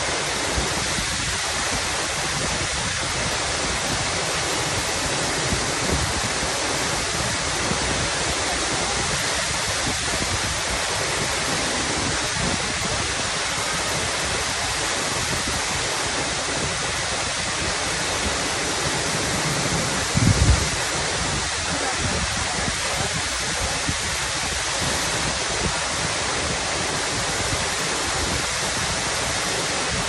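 Waterfall pouring into a rocky pool, a steady full rush of falling water. About two-thirds of the way through there is a brief low thump.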